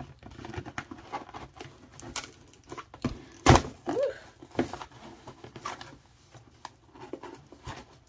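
Struggling to open a cardboard box sealed with strong packing tape: scattered scrapes, taps and rustles of handling and prying, with the loudest knock about three and a half seconds in.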